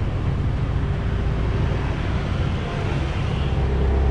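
Engine and road noise heard from aboard a moving open-sided passenger vehicle: a steady low engine drone under a rush of tyre and wind noise. A deeper engine hum swells near the end.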